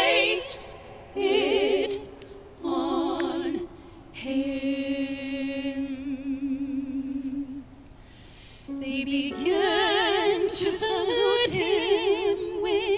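Small vocal ensemble singing unaccompanied in short phrases and long held notes with vibrato. Several voices join in harmony in the last few seconds.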